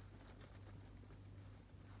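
Faint small clicks of a Roborovski hamster nibbling a broccoli stem, over a low steady hum.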